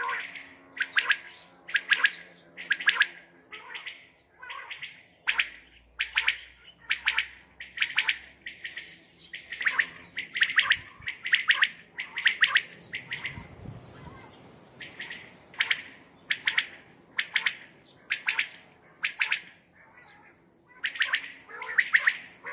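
Common quail calling: short, sharp notes repeated about twice a second, with a couple of brief pauses.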